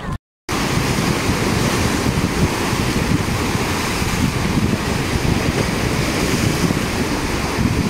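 Sea surf breaking and washing over a rocky shore in a steady rush, with wind buffeting the microphone.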